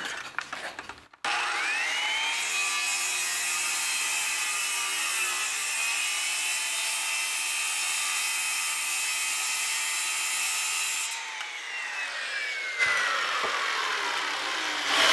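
Porter-Cable circular saw starting about a second in, its motor whine climbing to full speed, then running steadily through a slow forward cut in laminate-faced particleboard. After about ten seconds it is released and the whine falls away as the blade coasts down, with a couple of light knocks.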